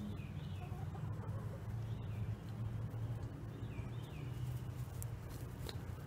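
Bird chirps, short high curved calls coming in small clusters three times, over a steady low hum.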